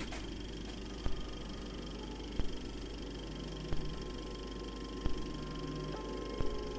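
Old-recording surface noise: a steady hiss and low hum with a soft double click about every 1.3 seconds.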